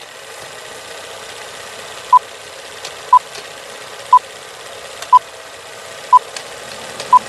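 Old-film countdown leader effect: a steady hiss of worn film with scattered crackle clicks, and a short, high beep once a second, six in all, starting about two seconds in.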